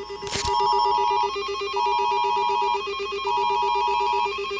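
Electronic alarm tone: a rapidly pulsing low beep under a higher tone that steps between two pitches roughly every second and a half, starting just after a sharp click.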